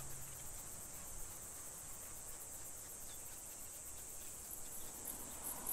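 Insects chirring: a steady, high-pitched, rapidly pulsing trill over faint background noise.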